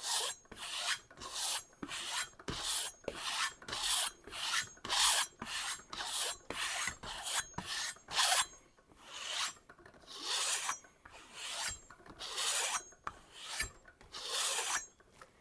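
Knife blade drawn along a hanging kangaroo-leather strop, a steady series of short scraping strokes about two or three a second, then slower, longer strokes about once a second. This stropping removes the root of the burr left from sharpening.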